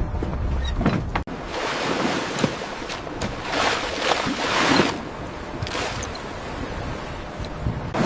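Sea wash and wind on a crab boat at sea: water rushes and sprays in several swelling surges, with wind buffeting the microphone. A low rumble underneath cuts off about a second in.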